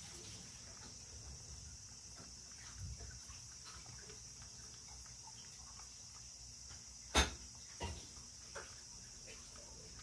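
Domestic cat lapping up liquid cat soup from a ceramic bowl: a run of small wet licking clicks, with one sharp knock about seven seconds in and two softer ones soon after, over a steady high-pitched hiss.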